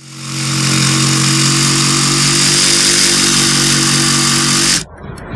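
Cordless jigsaw running at a steady speed as its blade cuts through a flat roof's deck, stopping abruptly near the end.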